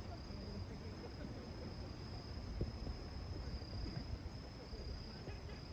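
A steady high-pitched insect trill, with a low rumble of wind buffeting the microphone underneath.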